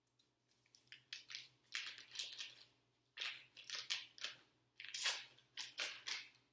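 Softened butter being scraped and scooped into a mixing bowl: a run of irregular scraping and rustling strokes.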